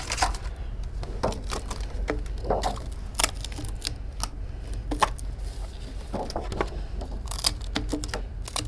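About a dozen light, irregular clicks and knocks over a steady low hum in a small room.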